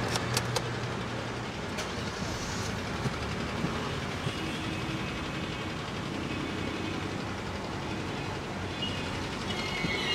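Steady rumble of a running vehicle, with a few light clicks in the first half-second.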